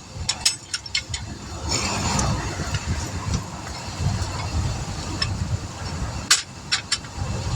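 Interstate traffic passing at highway speed, a steady low rumble with rushing noise that swells about two seconds in. Several sharp metallic clicks and clinks of tools being handled sound in the first second and again near the end.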